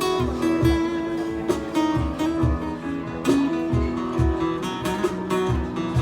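Background music: strummed acoustic guitar over a steady drum beat.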